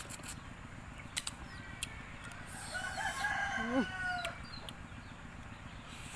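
A rooster crowing once, a call of several notes ending in a long held note, lasting over a second about two and a half seconds in. A few short sharp clicks come before it.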